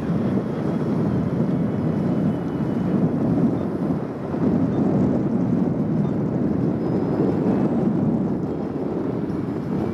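Wind buffeting the microphone: a steady low rumble that swells and dips, with a brief lull about four seconds in.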